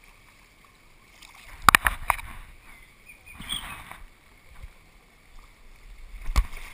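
Volleyball being struck by hand in a swimming pool: sharp slaps, a quick cluster of them near two seconds in and a single loud one near the end, with water splashing and sloshing between them.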